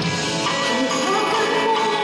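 Live band music with guitar, and a voice singing a melody over it from about half a second in.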